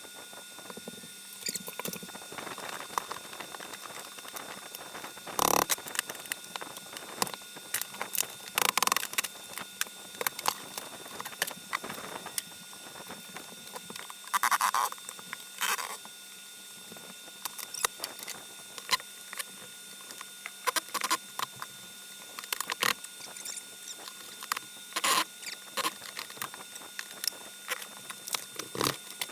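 Irregular clicks, knocks and scraping of hand demolition work as a built-in TV cabinet is pried and worked loose from an RV wall, with a few louder scrapes scattered through.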